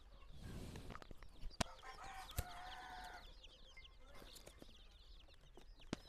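A box of young Sonali chicks peeping, many short high chirps overlapping all the way through. About two seconds in, a grown chicken gives one longer, lower call, and there are a couple of light knocks.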